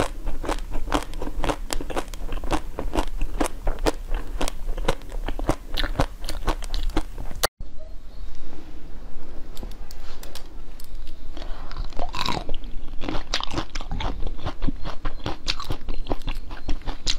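Close-miked eating: rapid crunchy bites and chewing of a pink strawberry-shaped treat. About halfway through, after a brief break, the crunching goes on with purple grape-shaped treats that have a hard outer shell.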